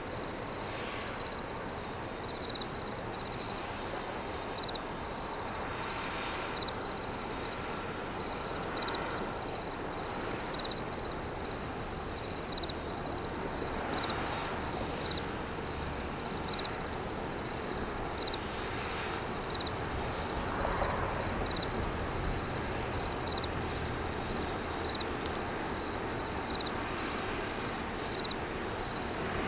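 Insects trilling and chirping: a steady high buzz with evenly repeating chirps, over a low rumble that swells midway.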